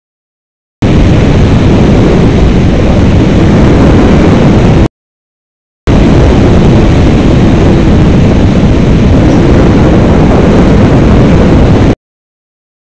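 Airflow of paragliding flight buffeting an action camera's microphone: a loud, steady wind rush, heaviest in the low end. It cuts out to dead silence for about a second three times: near the start, about five seconds in, and near the end.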